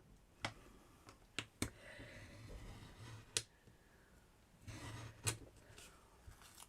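A handful of light, sharp clicks and taps with soft rustling between them, as small craft pieces for a miniature door are handled and set down on a work surface.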